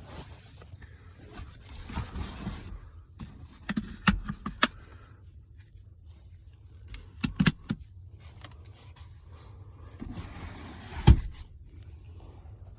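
Sharp clicks and knocks from parts of an Audi A6 C5 Avant estate being handled, a few about four seconds in and more past seven seconds, then one loud thump near the end like a door or panel being shut. Heavy, wheezing breathing comes in between.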